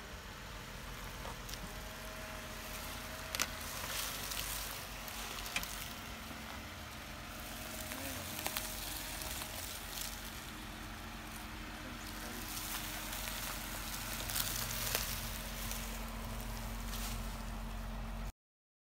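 Jeep Wrangler Rubicon driving slowly over rough ground: a steady low engine hum with crunching and crackling from the tyres on dirt and gravel, and a few sharp clicks. The sound cuts off suddenly near the end.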